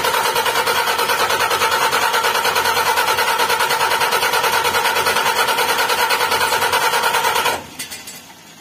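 Starter motor cranking a large diesel generator engine with a fast, even beat, cutting off suddenly about seven and a half seconds in without the engine catching. It is a failed start attempt, which the electrician puts down to the set standing idle for over a week and a half.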